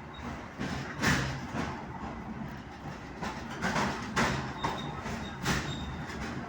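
Passenger train heard from on board: wheels clacking over rail joints at uneven intervals over a steady rumble, with a faint thin squeal briefly about two-thirds of the way through.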